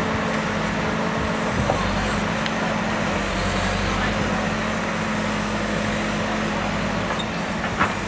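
JCB backhoe loader's diesel engine running steadily under work, with a couple of short knocks from the machine, a sharper one near the end.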